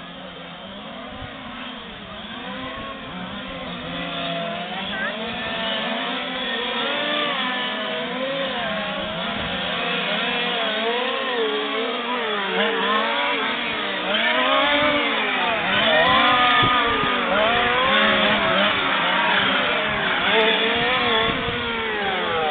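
A field of 1:5 scale radio-controlled racing trucks with small two-stroke petrol engines, several engines revving up and down at once as they lap the circuit. The whine rises and falls with each throttle change and gets louder from about halfway through as the pack comes closer.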